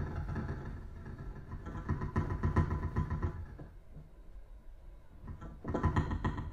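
Amplified double bass heard through a piezoelectric contact microphone, mixed with live electronics, in a contemporary piece for string trio and electronics. It makes a dense, rapidly pulsing, rumbling texture that thins out about halfway through and comes back strongly near the end.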